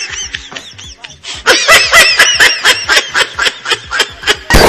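Laughter: a rapid run of short, high-pitched ha-ha pulses, getting louder and faster about a second and a half in.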